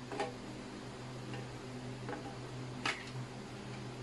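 Plastic clicks and knocks as a Ubiquiti LiteBeam 5AC Gen2 radio body is fitted into the mount of its plastic dish reflector: two sharper clicks, one just after the start and one about three seconds in, with fainter ticks between.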